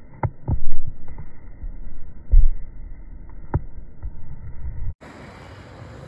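Handling noise on a smartphone: a handful of dull knocks and thumps against the phone and its microphone, the loudest near the start and about two and a half seconds in. The sound then cuts abruptly to a steady faint hiss about five seconds in.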